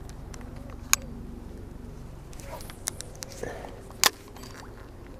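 Handling of a fishing rod and reel: a few short, sharp clicks and knocks over a steady low background, the loudest just after four seconds in.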